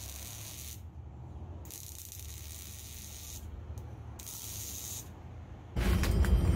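MIG welder arc hissing and crackling in three short runs as the new exhaust tip is welded on. Near the end a loud, deep exhaust rumble from the Silverado's 5.3 V8 running through its new Flowmaster 40 series muffler comes in suddenly.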